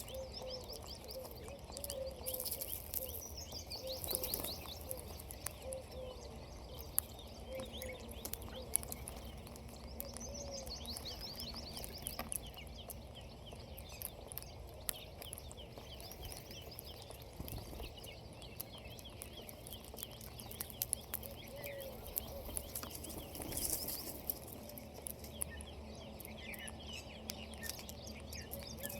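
Birds chirping: quick high runs of chirps come and go several times, over a row of short, lower repeated call notes and a steady low background hum.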